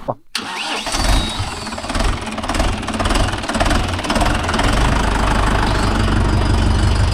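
Mahindra Yuvo Tech+ 585 tractor's diesel engine starting up. It runs unevenly for the first few seconds, then settles into a steady idle about five seconds in.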